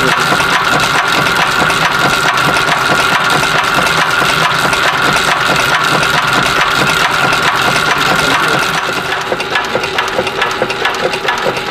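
Automated bullet-swaging press running, punching lead cores into .22 cal airgun slugs, with a rapid, even clatter of press strokes over a steady machine whine. The whine stops about three-quarters of the way through, while the clatter goes on.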